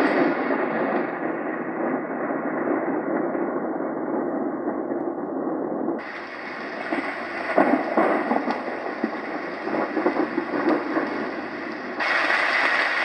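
Rain and thunderstorm recordings played through the Roffie white noise machine's small speaker: a steady rain-like hiss with no bass. It switches to a different track about six seconds in, a brighter hiss with scattered cracks, and to another near the end.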